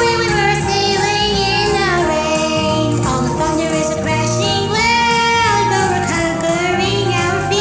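Cheerful sea-shanty song: a woman singing over a backing track with a steady bass line.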